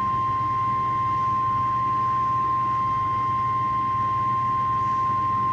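NOAA Weather Radio 1050 Hz warning alarm tone, one steady unbroken high tone over a low hum and hiss from the radio. It is sounded as part of the required weekly test of the alarm system.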